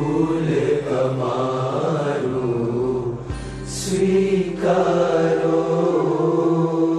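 Devotional Swaminarayan kirtan music: a steady held drone under a gliding melodic line, dipping briefly about three seconds in.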